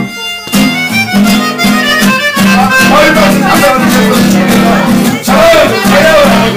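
Live Roma party music on accordions: a reedy melody over steady held chords, after a brief drop-out at the very start.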